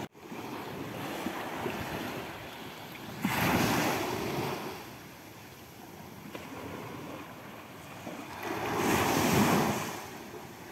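Small waves breaking and washing up a sandy beach: a steady hiss of surf with two waves swelling and fading, one at about three seconds and one near the end.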